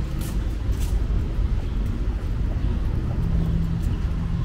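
Street ambience: a steady low rumble of road traffic, with a vehicle engine's hum coming in about three seconds in.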